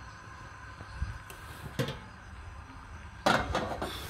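Sharp clicks from handling a single-burner gas stove to light it: a couple of light clicks about two seconds in, then a louder knock followed by a few quick clicks near the end.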